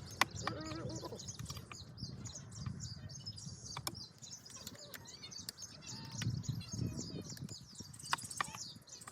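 Small birds chirping steadily, with a few sharp clicks and knocks of hand tools: the loudest comes just after it begins, and two more fall near the end. A short pitched animal call is heard near the start.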